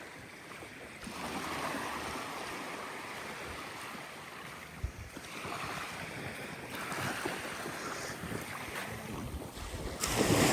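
Sea waves washing onto a beach, with wind blowing across the microphone.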